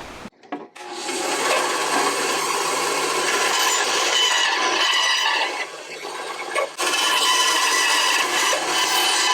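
Wooden knife handle being worked down with a tool cutting and rubbing into the wood: a steady rough rasping that pauses for about a second midway, then carries on.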